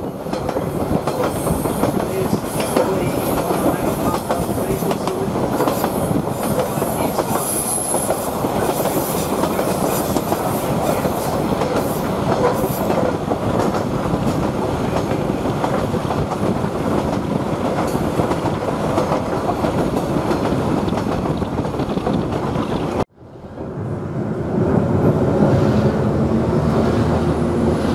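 Queensland Rail 2000 class rail motor under way, its wheels clattering over the rail joints. About five seconds before the end the sound cuts off and comes back as a steadier, lower engine hum.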